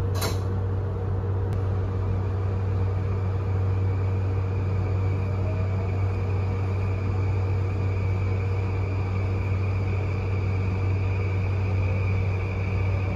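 Cabin sound of a JR East E235 series electric train pulling away: a steady low rumble with the traction motor whine faintly rising in pitch as it accelerates. A single door thud comes right at the start.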